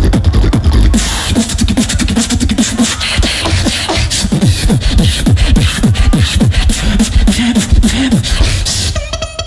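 Live beatboxing into a handheld microphone: heavy bass kicks and dense sharp clicks, then from about a second in a run of quick falling bass sweeps under the clicking. Near the end it cuts to a held musical tone.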